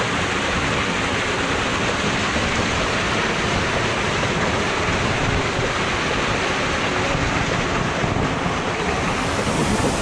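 Steady rush of a small waterfall splashing into a rocky stream pool.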